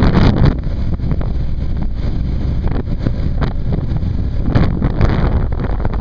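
Heavy wind buffeting on the microphone of a camera riding on a moving motorcycle, with the bike's engine running underneath. It is a continuous rough rumble with frequent short gusts.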